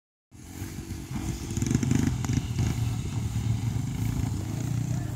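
Dirt bike engine revving as it rides the track, its pitch rising and falling with the throttle.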